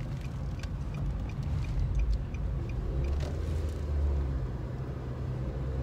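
Steady engine rumble and road noise inside a moving car's cabin. A light, regular ticking runs at about three ticks a second through the first half, then stops.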